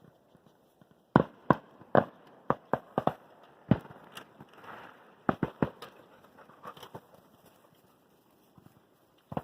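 Fireworks going off in an irregular string of sharp bangs, about a dozen of them, clustered in the first two-thirds, with a quiet stretch near the end.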